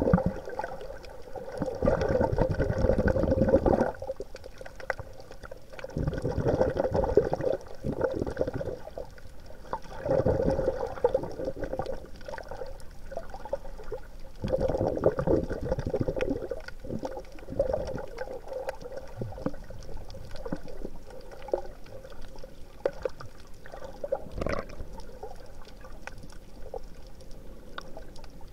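Water bubbling and sloshing in surges every few seconds, over a steady low hum.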